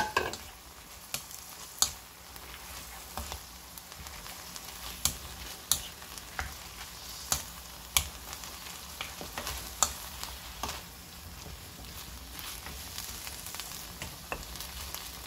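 A spatula stirring dried radish greens, onion and green onion in a pan of shallow liquid, with a steady sizzle and sharp clicks every second or two as the spatula knocks against the pan.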